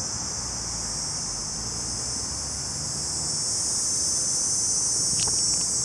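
Cicadas droning in a steady high-pitched buzz, growing louder about three seconds in.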